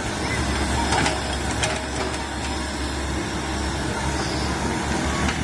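Komatsu PC130 excavator's diesel engine running steadily, with a few faint sharp knocks over it.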